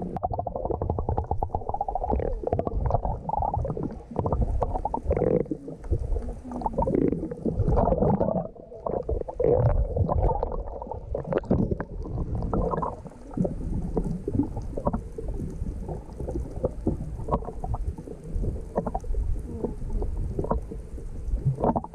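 Muffled water sloshing and gurgling with a low, uneven rumble.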